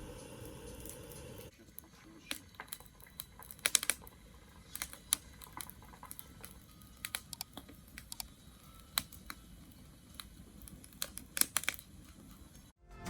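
Wood bonfire crackling, with irregular sharp pops and snaps. A low steady hum underlies the first second and a half, then stops.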